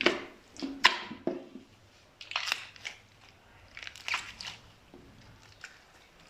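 Slime being pressed and mixed by hand: an irregular series of short sticky pops and crackles, some coming in quick clusters.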